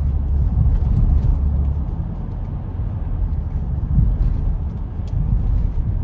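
Car driving on a road, heard from inside the cabin: a steady low rumble of tyre and engine noise.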